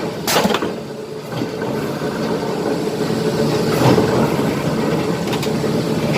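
Colombo Agostino mechanical power press running with its flywheel spinning, a steady hum, with sharp bursts about half a second in and again near four seconds. The press is being trial-cycled on command after its clutch-and-brake air directional valve was replaced.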